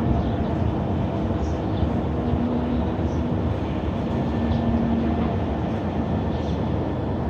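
Unexplained low rumbling drone in the sky, with a faint horn-like tone that swells and fades three or four times, and small birds chirping.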